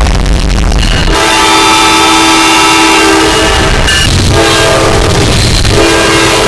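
Train horn sounding three long blasts, a chord of several notes, heavily distorted and clipped from being boosted far past full volume. About the first second is a loud distorted rumble before the first blast.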